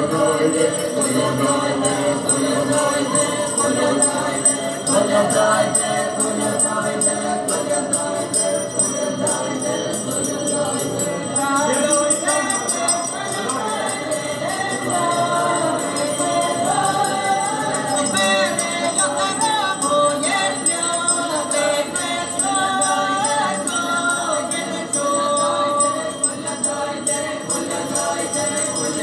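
Ukrainian folk ensemble singing a traditional folk song together in chorus, over a steady beat.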